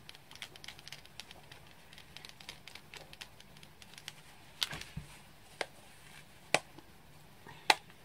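Soft rubbing and small ticks of a brush being wiped on a cloth, then from about halfway sharp knocks about once a second from someone hammering on a shed roof outside.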